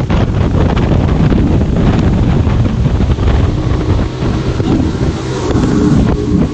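Wind buffeting the microphone over a motorboat engine running steadily on the water.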